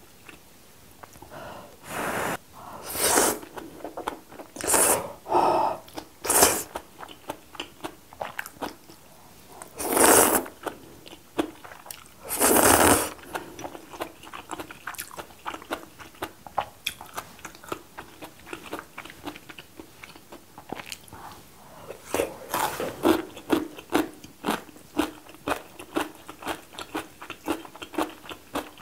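Close-miked eating of spicy kalguksu noodles. First comes a run of about six loud slurps of noodles, each half a second to a second long. Then there is wet chewing with small crunches, settling into a steady rhythm of about three chews a second near the end.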